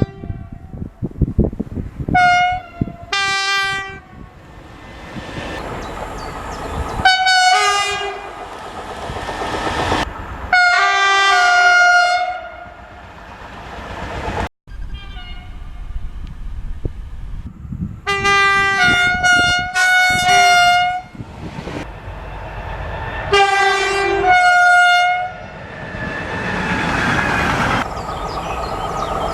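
A series of loud train horn blasts, several of them two notes, stepping from the higher to the lower, sounded by passing trains. Between blasts there is the rushing noise and wheel clatter of the trains on the rails, with a brief dropout about halfway through.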